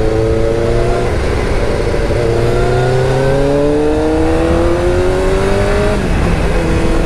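Motorcycle engine accelerating through the gears, its pitch rising in pulls, with gear changes about a second and two seconds in, then a long pull that ends with the revs dropping about six seconds in.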